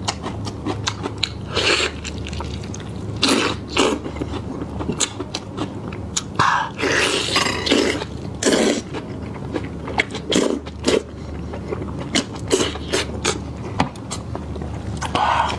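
A person chewing and biting into lamb chops close to the microphone: many irregular clicks and mouth smacks, with a few longer, louder bites.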